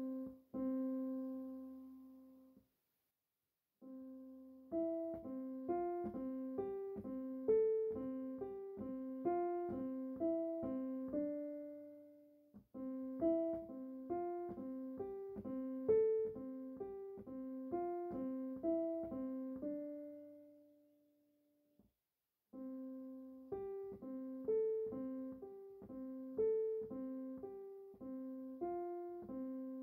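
Solo piano music playing a gentle melody of evenly paced notes in phrases. It drops to silence briefly about three seconds in, and again about twenty-one seconds in.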